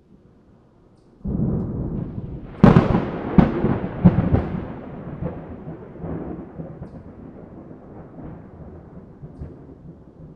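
A sudden low rumble starting about a second in, with three or four sharp cracks over the next two seconds, then a long rumble that slowly fades away, like a thunderclap.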